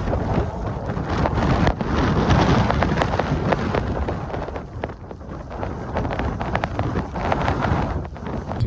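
Blizzard wind buffeting the microphone, a low rumbling roar peppered with many sharp crackles and ticks that dips briefly about five seconds in.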